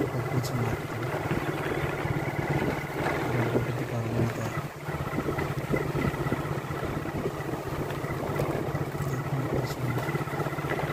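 Motorcycle engine running steadily under way, ridden along a rough dirt forest track, with a brief dip in level about halfway through.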